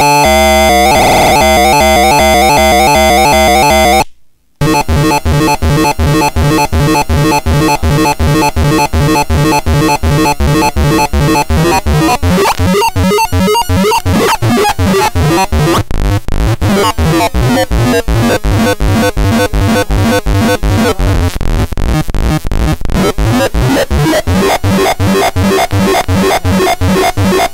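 Homemade circuit-bent noise synthesizer and step sequencer playing a loud, harsh chiptune-style pattern of stepped tones. It cuts out for a moment about four seconds in, then comes back as a fast, even pulsing sequence.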